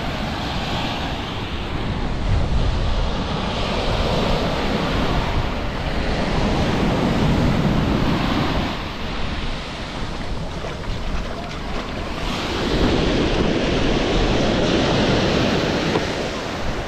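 Small ocean waves breaking and washing up a sandy beach, the wash swelling and easing in slow surges every few seconds. Wind buffets the microphone throughout.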